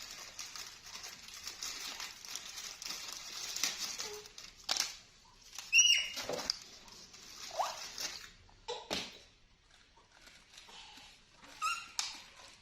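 Rustling and handling noise, then a few short high-pitched squeaks from a pet monkey, the loudest about six seconds in, with scattered clicks between them.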